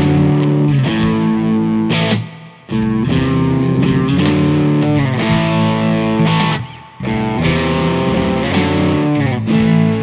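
Electric guitar with single-coil pickups playing a blues shuffle riff through an amp-simulator pedal set at the edge of breakup, giving a lightly overdriven tone. The playing stops briefly about two seconds in and again near seven seconds, then starts over, as the pickup or guitar changes.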